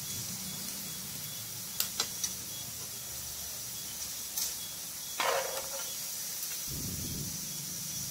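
Oil sizzling around paneer pieces shallow-frying in a pan, a steady hiss, with a few light clicks of a steel spoon against the pan as pieces are lifted out.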